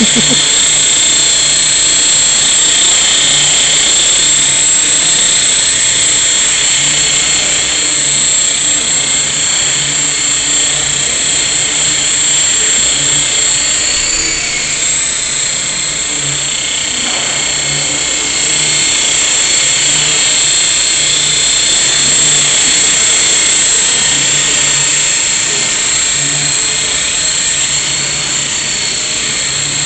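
Esky Belt CPX electric RC helicopter in flight, its motor, gears and rotors giving a steady high-pitched whine that wavers slightly in pitch as it manoeuvres.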